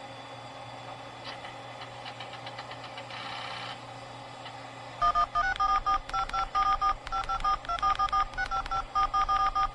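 A steady electronic hum with faint ticking. About halfway through, a rapid string of touch-tone (DTMF) dialing beeps begins: a number being dialed out, short two-tone beeps in quick succession.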